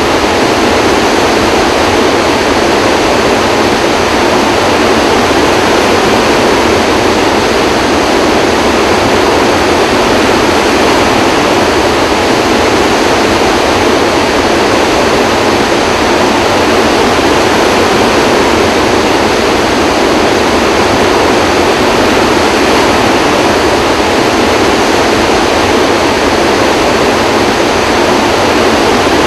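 Floodwater rushing out of Kaw Dam's open spillway gates and churning in the basin below, a high-volume flood release. Loud and steady throughout, a dense rushing of water and spray.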